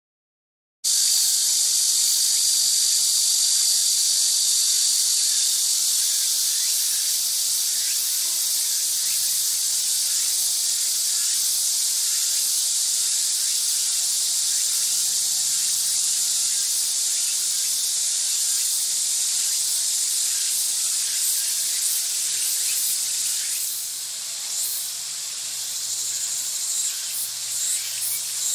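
Steady high-pitched chorus of insects chirring in summer vegetation, starting about a second in, with a few faint clicks near the end.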